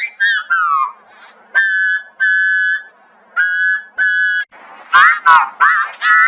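Electronically altered audio of a children's song: a whistle-like falling tone, then four steady high beeps in two pairs, 'beep beep, beep beep', like a toy bus horn, then quick warbling, gliding tones near the end.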